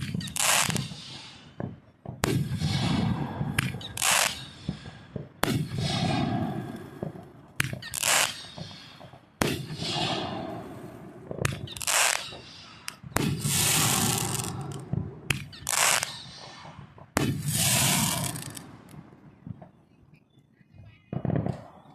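Fireworks going off in quick succession: about a dozen sharp bangs, roughly one every one to two seconds, each followed by a hiss. They thin out near the end, with one last bang.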